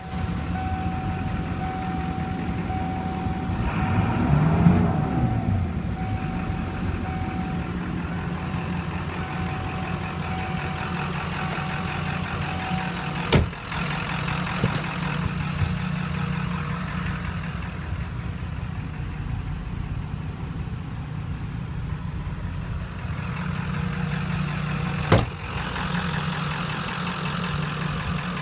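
Ford 7.3 Powerstroke V8 turbo diesel idling steadily, revved briefly about four seconds in. A steady high tone sounds for the first half and stops with a sharp thump about thirteen seconds in, a door slamming shut; another sharp knock comes near the end.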